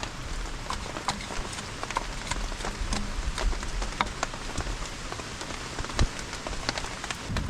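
Heavy rain falling steadily, with many single drops ticking and tapping close by, and one louder knock about six seconds in.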